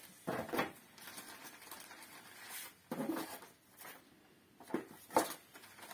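Clear plastic packaging bags crinkling and rustling as they are handled, in a few short bursts.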